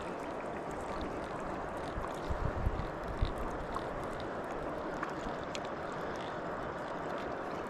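River water flowing steadily, a constant rushing noise, with a few dull low thumps about two to three seconds in.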